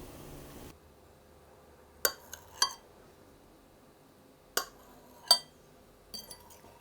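Light clinks of a utensil against dishware, coming in small groups about every two seconds, each with a brief ring.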